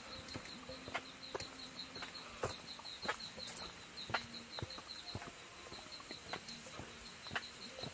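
Footsteps crunching on a dirt trail littered with dry bamboo leaves and twigs, an irregular run of sharp crackles and snaps. Behind them a high, even call pulses several times a second, fading out near the end.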